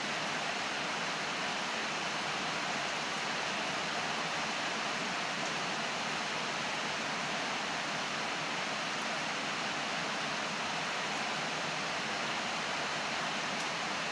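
Heavy rain pouring down in a steady, even hiss, heard from under a corrugated metal roof.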